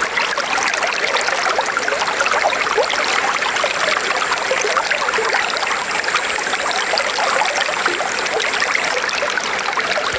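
River water flowing steadily over stones, a constant bubbling and splashing rush.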